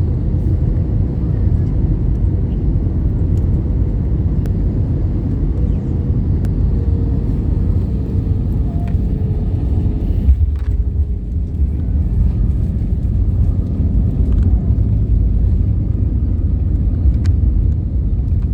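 Steady low rumble of jet engines and rushing air heard inside an airliner cabin, with a faint hum that stops about ten seconds in.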